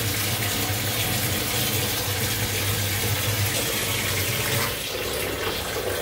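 Water running steadily from a bathtub spout into a tiled tub-shower, with water also spraying from the overhead shower head while the tub spout is on, which the plumber takes for a faulty diverter. The low part of the rush drops away about five seconds in.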